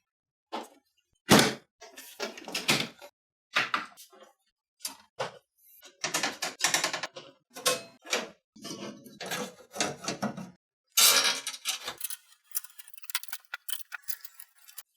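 Knocks, clicks and scraping of a PC case's top panel and parts being handled and taken off. The sharpest knock comes about a second and a half in, and a longer scrape follows near the end.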